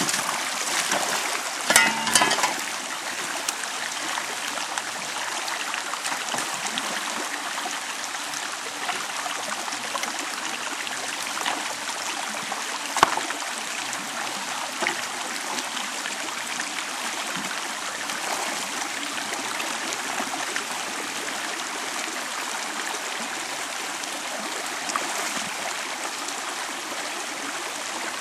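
Shallow creek water running steadily over rocks, with a few knocks and clatters as a sluice box is set into the flow: a short cluster about two seconds in and one sharp knock near the middle.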